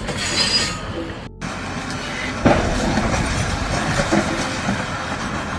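Bulldozer at work, a steady clanking rattle with a rumble underneath and one loud crack about two and a half seconds in. The sound breaks off briefly just over a second in.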